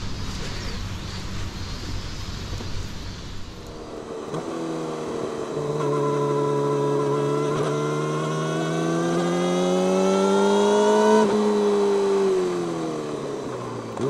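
Yamaha YZF-R6 inline-four through an Akrapovic megaphone slip-on exhaust. It runs low under road and wind noise, then accelerates with a steadily rising pitch for several seconds. About eleven seconds in the throttle closes and the revs fall away.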